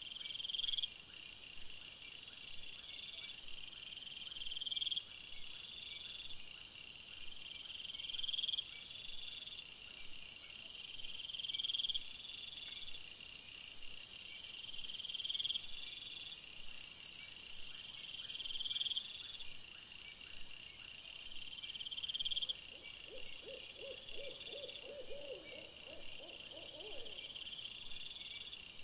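Night insects such as crickets chirping in a repeating pattern every couple of seconds, with a very high continuous trill joining in for several seconds midway. Near the end comes a short run of rapid, lower-pitched pulses.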